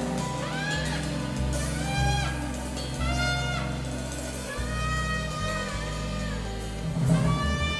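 Instrumental jazz: a horn plays a melody of scooping, gliding notes over a bass line and drums.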